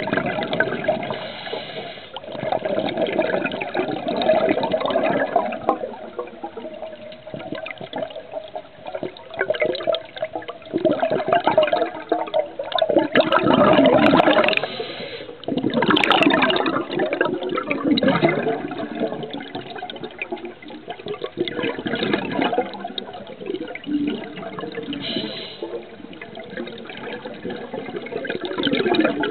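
Underwater bubbling and rushing of a scuba diver's exhaled air from the regulator, swelling in repeated surges a few seconds apart and loudest about halfway through.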